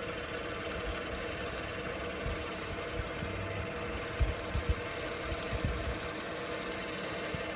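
Wood lathe motor running steadily with a constant hum, with a few low bumps a little past halfway.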